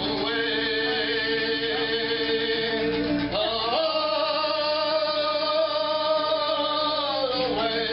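Acoustic folk music: plucked banjo and guitar under a long held melody line, which slides up to a higher note about three seconds in and back down near the end.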